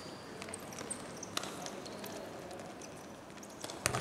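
Futsal play on an indoor sports-hall court: a few sharp knocks of the ball being kicked, the loudest just before the end, and short high squeaks of shoes on the court floor over a steady hall background.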